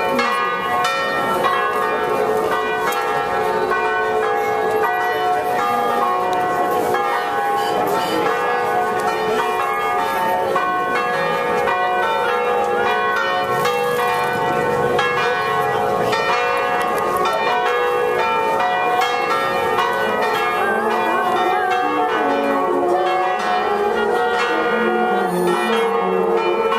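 Church bells in the nearby tower ringing a long, continuous peal, several bells of different pitches striking over and over without a pause.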